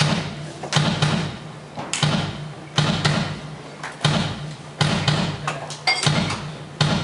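Heavy percussive thuds struck on stage, about eight of them at roughly one a second, each ringing out in the hall, over a low steady hum.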